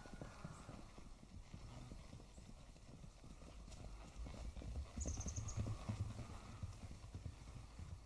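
Distant thunder rolling as a low rumble that swells about five seconds in, with scattered soft knocks and a brief high chirp over it.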